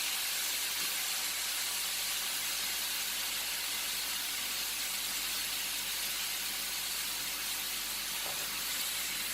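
Chicken pieces sizzling steadily in a very hot frying pan as they are seared to seal them.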